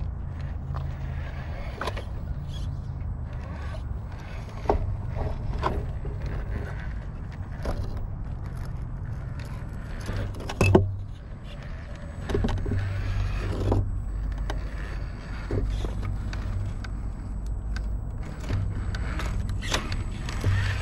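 Vanquish VS4-10 Phoenix RC rock crawler's electric motor and drivetrain running with a low whir that comes and goes with the throttle, while its tires and chassis click, knock and scrape over rock. A sharp knock about eleven seconds in is the loudest sound.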